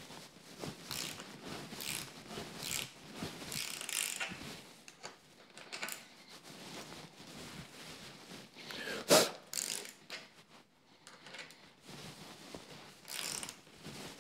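Ratcheting ring spanner clicking as it drives a thread-cutting tap into the end of a motorcycle handlebar, worked in a few turns and back out a few. Short irregular runs of clicks, with one louder clack about nine seconds in.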